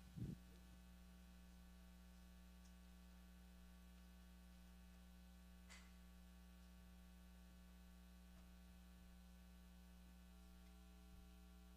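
Near silence with a steady low electrical hum in the sound system, broken by one soft low thump just after the start and a faint click about halfway through.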